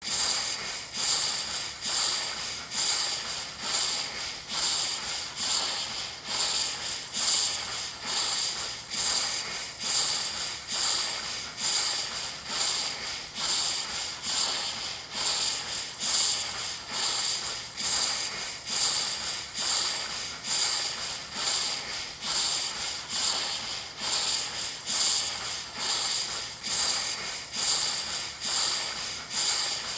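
Background music: a steady, repeating beat of light, high, hissy percussion with little bass, accented about once a second.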